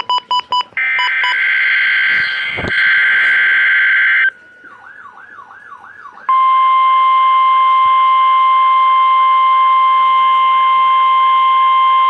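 NOAA Weather Radio alert signal: a few short beeps, then a burst of harsh, buzzing digital SAME header data, then a warbling sweep. About six seconds in, the steady warning alarm tone starts, with a warble beneath it.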